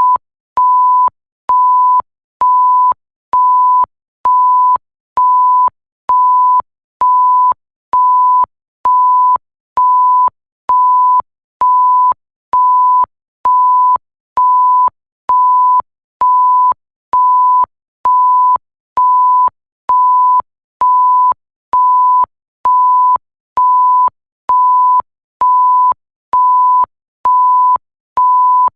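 Electronic bleep tone repeating at an even pace, about one beep a second. Each beep is a single steady high pitch lasting about half a second, with a slight click as it switches on and off.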